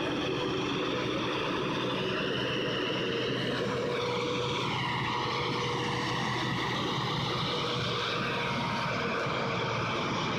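Heavy vehicle engine running steadily under load, its pitch dipping a few seconds in and slowly climbing again.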